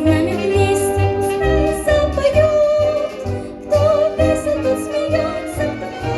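Upbeat instrumental music, a melody over a steady bouncing bass beat.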